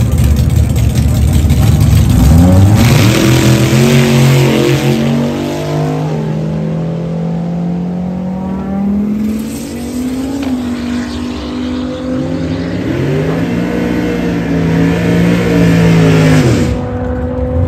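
Turbocharged GM Vortec 3500 inline five-cylinder revving up hard at the drag-strip start line, then pulling at full throttle down the track. Its pitch climbs steeply, holds, and rises again, dropping back a few times as it goes through the gears.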